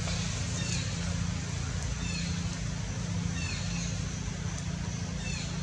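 A steady low mechanical hum, like an engine running, with short high chirps that fall in pitch several times.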